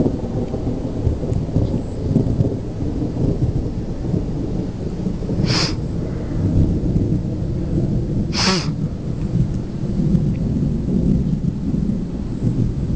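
Thunder rumbling low and continuously through a rainstorm. Two brief high hisses come about three seconds apart.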